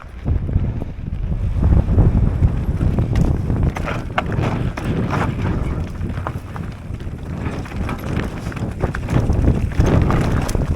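Wind buffeting the microphone over the rumble of a mountain bike's tyres on a rough dirt trail, with scattered clicks and rattles from the bike over bumps.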